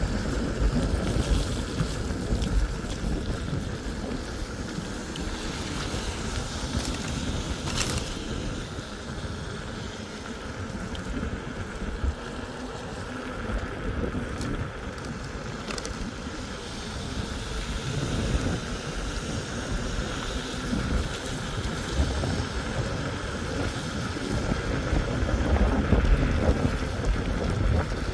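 Wind rumbling on the microphone over the steady hiss of tyres on a wet road during a ride in the rain.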